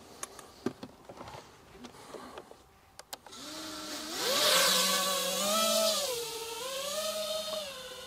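A few faint clicks, then about three seconds in the brushless motors of a Nazgul 5 FPV quadcopter spin up into a whine that climbs steeply for takeoff and then rises and dips with the throttle.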